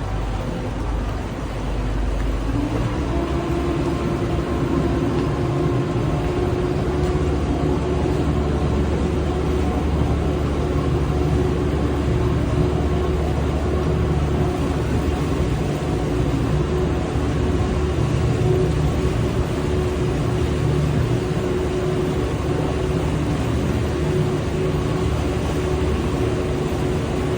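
Towboat's marine engine running under way, a steady drone whose pitch lines pick up about three seconds in and then hold.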